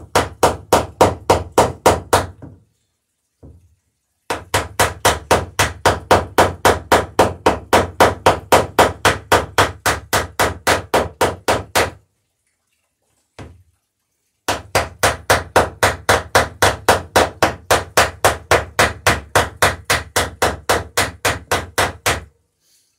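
Hammer rapidly peening rivets in the lapped planks of a wooden dory hull, about five sharp blows a second. The blows come in three long runs, with a single strike in each pause between them.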